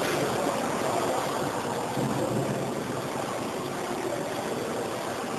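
Johnford ST-80CX CNC slant-bed lathe running, a steady even machine noise without distinct knocks or changes.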